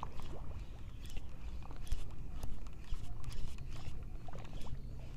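Outdoor wind rumble on the microphone with sea water moving along a concrete seawall, and a few light, irregular clicks.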